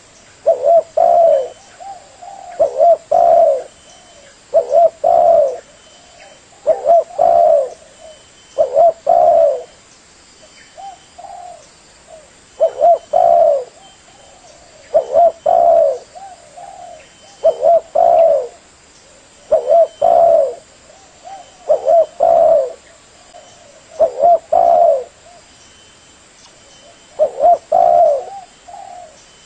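Spotted dove (tekukur) cooing: a short phrase of several coos repeated about every two seconds, with a brief lull about a third of the way through.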